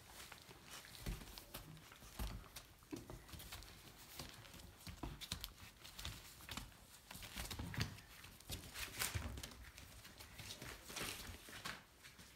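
Great Pyrenees puppies moving about and playing on a rug and newspaper: irregular soft thumps, scuffs and paper rustles from their paws and bodies.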